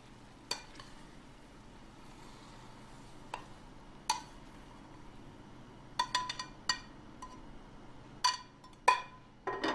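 Metal tongs clinking against a stainless steel sauté pan and a ceramic plate as pasta is served out: scattered sharp clinks, each with a short ring. There is a quick cluster of several about six seconds in and a few more near the end.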